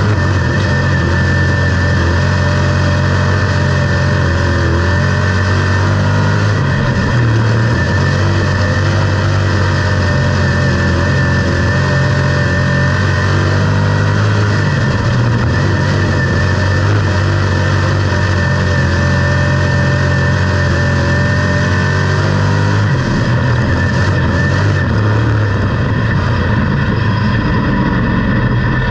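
Dirt-track race car's V8 engine running hard at racing speed, heard on board the car on a clay oval. The engine note drops and climbs again several times as the car goes through the turns and down the straightaways.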